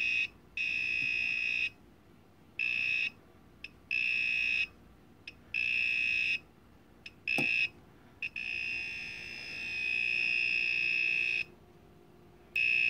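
The built-in circuit sensor of a Skil 4V rechargeable screwdriver sounds its high-pitched alert tone as it is held to a wall outlet. The tone comes in on-off stretches of uneven length, from a fraction of a second to about three seconds, each one showing that it is picking up live voltage.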